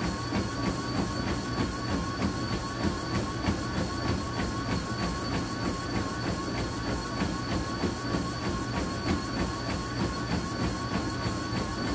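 Running footfalls on a treadmill belt, about three strikes a second, over the treadmill's steady motor hum and whine.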